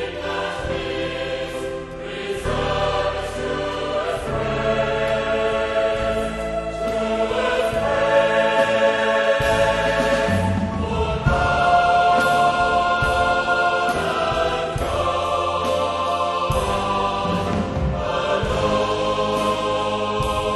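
A choir singing a Christian worship song with accompaniment, held chords changing every few seconds.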